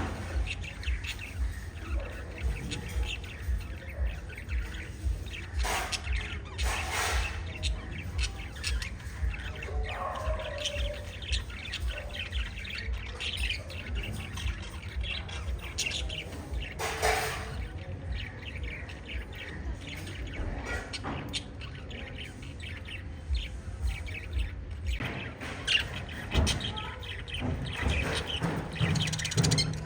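Several lovebirds chirping and twittering continuously, with a few louder, sharper calls standing out. Underneath runs a low, rapid pulsing that stops about five seconds before the end.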